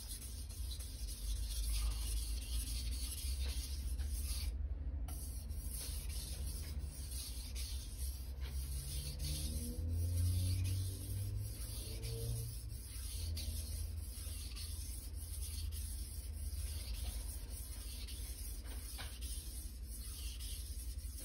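Knife blade being rubbed back and forth across an 800-grit Naniwa Chosera whetstone in repeated sharpening strokes, with a short pause about five seconds in. A low hum runs underneath.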